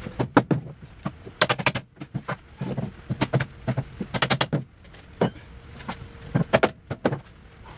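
Metal hand tools clinking and tapping against nails and the steel trailer frame as the plywood deck, nailed into the metal, is worked loose. The sharp clinks come in short clusters about every second.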